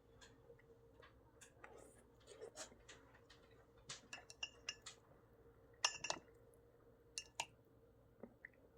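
Quiet, scattered clicks and clinks of a utensil against a dish of yakisoba. The loudest clink rings briefly about six seconds in. A faint steady hum runs underneath.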